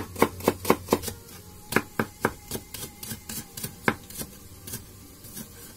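Kitchen knife chopping a leek on a wooden cutting board: quick, even knocks about four a second, a short break about a second in, then more chops that grow sparser and stop near the end.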